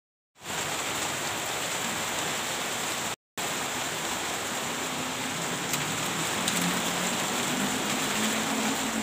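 Steady rain falling, a dense even hiss. It drops out for a split second about three seconds in.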